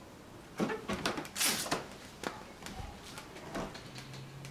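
Newly built Mojotone 5E3 tweed Deluxe clone valve amplifier crackling through its speaker just after the B+ supply is switched on: irregular pops and a short burst of noise. A low, steady hum comes in near the end. The builder puts the crackle down to the amp still heating up.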